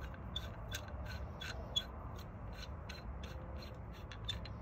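Small brass gas orifice of a Dearborn heater's valve being turned by hand: a run of light metallic ticks and scrapes, about three a second, with one sharper click a little before the middle.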